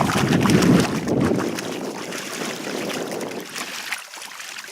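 Wind buffeting the microphone over water washing at the shoreline. The low rumble is strongest in the first second or so, then eases.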